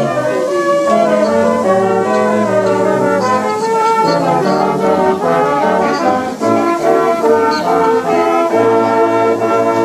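Brass instruments playing music together, holding chords that change every half second to a second.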